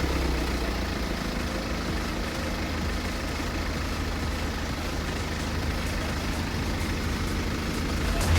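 BMW diesel engine idling steadily, running on its rebuilt injectors.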